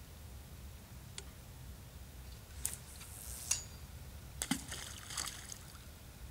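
Feeder rod being cast: a swish and hiss as the line runs off the spinning reel, then the feeder landing in the river with a splash about four and a half seconds in, followed by a brief rustle.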